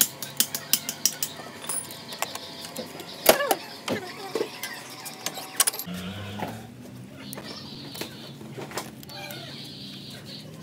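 Hand tools clicking and clinking against metal parts in a car's engine bay. About six seconds in, a steady low mechanical hum starts and carries on.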